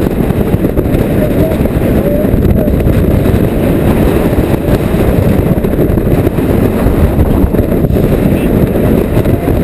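Strong wind buffeting the camera microphone in a 20–30 knot breeze on a sailboat: a loud, steady, low rumble that never lets up.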